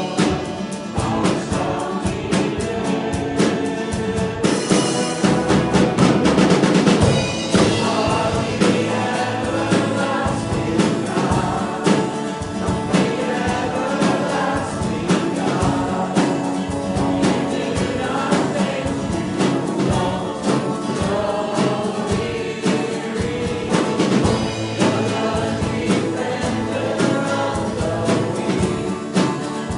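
Christian worship song: a group of voices singing together over instruments with a steady beat.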